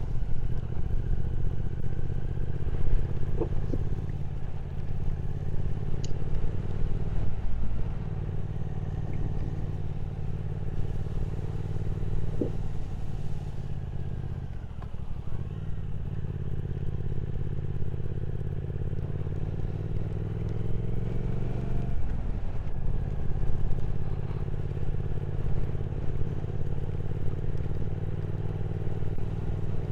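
Triumph Speed Twin 1200's parallel-twin engine running at road speed. The revs climb and then drop at gear changes, around 7 seconds, 15 seconds and 22 seconds in.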